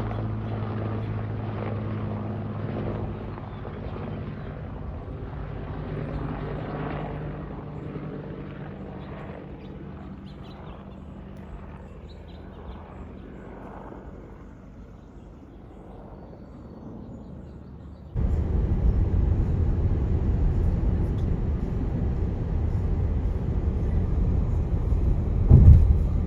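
Aircraft engine noise, a steady low droning hum, fading away as the aircraft moves off. About two-thirds of the way through it cuts suddenly to a much louder low rumble.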